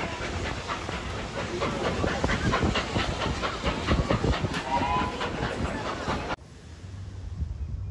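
Heritage train working with steam: a steady hiss of steam under a rapid beat of exhaust chuffs. It cuts off abruptly about six seconds in, leaving a quieter low hum.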